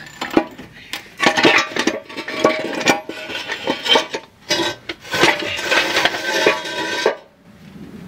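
Metal hand tools and engine parts clanking and rattling against each other: a string of irregular knocks with a metallic ring that stops about seven seconds in.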